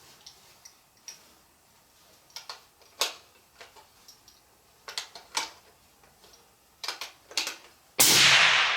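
Scattered light clicks and taps, then, about eight seconds in, a single loud rifle shot that rings out and trails off slowly.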